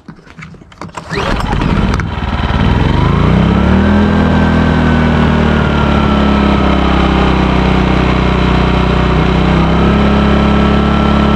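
Portable inverter generator's petrol engine pull-started without choke: it catches about a second in, revs up over the next couple of seconds, then runs steadily at full speed with its economy mode switched off.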